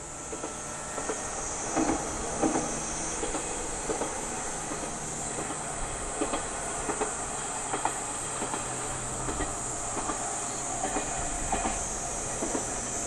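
KiHa 120 single-car diesel railcar running past at a distance, its wheels clattering irregularly over the rail joints, with a low engine drone beneath. A steady high hiss sits over it.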